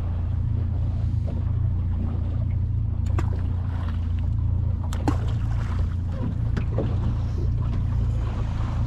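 Steady low wind rumble on the microphone over water around a drifting boat. A couple of short, sharp sounds about three and five seconds in come as balls of shrimp bait are tossed into the water.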